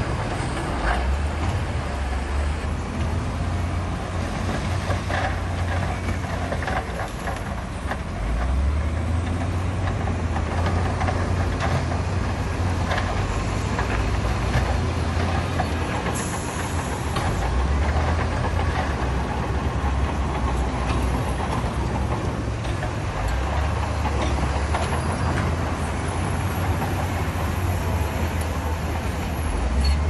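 Heavy diesel earthmoving machinery running under load. Its low engine note steps up and down several times, with scattered metallic knocks and clanks over a steady mechanical din.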